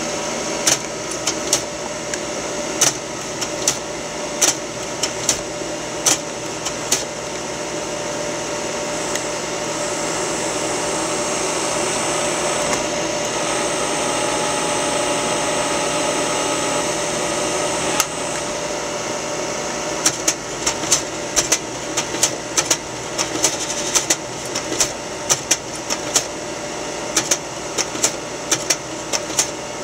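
Kodak Ektagraphic III E Plus slide projector running, its cooling fan giving a steady whir, while the slide-change mechanism clicks each time the remote is pressed. There are several clicks in the first seven seconds, a single one near the middle, and a quick run of them over the last ten seconds.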